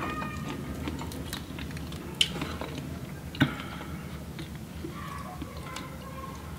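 Hands peeling seafood shells and picking through a glass baking dish: light crackling with two sharp clicks, about two and three and a half seconds in, the second the louder.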